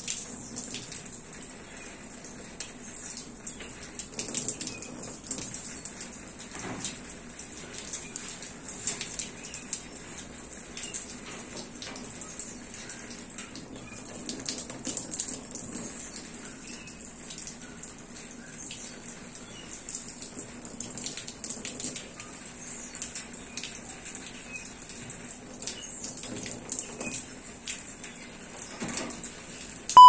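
Water running from the open end of a garden hose in a thin stream and spattering, with irregular small splashes and clicks as a blue-and-gold macaw drinks from it.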